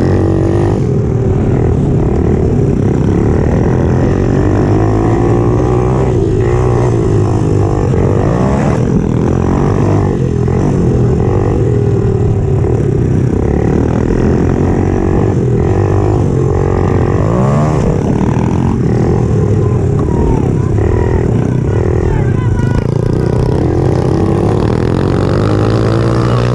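Pit bike's small single-cylinder engine at racing pace, heard onboard, revving up and down over and over as the throttle opens and closes, its pitch rising and falling with each rev.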